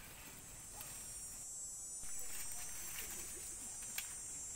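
Insects, crickets or cicadas, shrilling steadily on one high pitch, growing louder about halfway through, with a sharp click near the end.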